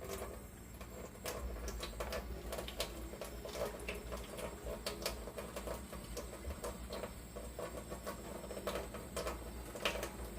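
Cooked macaroni being drained in the kitchen: water running off with steady low rumble, and the pot and colander knocking and clattering many times.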